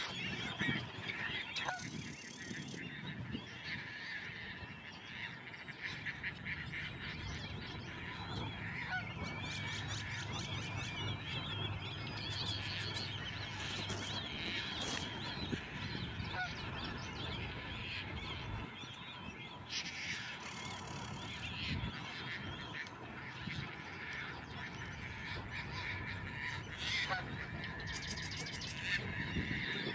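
Many birds calling over one another in a continuous, overlapping chorus.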